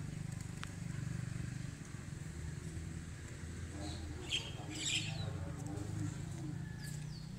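A vehicle engine runs steadily with a low hum, and a few short bird chirps come about four to five seconds in.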